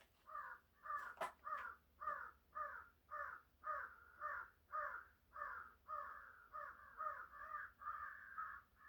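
Crows cawing in a steady, unbroken run of short caws, about two a second, fairly faint.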